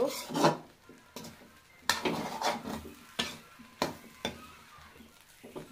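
A metal spoon stirring and scraping cooked rice around a large metal kadai, with sharp, irregular knocks of the spoon against the pan about once a second.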